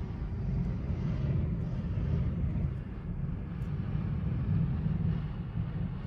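Strong gusting wind buffeting the microphone: a deep rumble that swells and eases, with a fainter hiss of wind over the snow.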